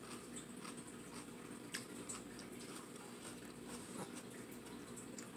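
Faint wet mouth clicks of someone chewing food, a few sparse ones, over a steady low room hum.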